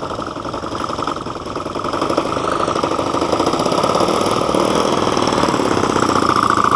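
A small glow-fuel model-aircraft engine running with a fast, even firing rattle, growing louder from about two seconds in.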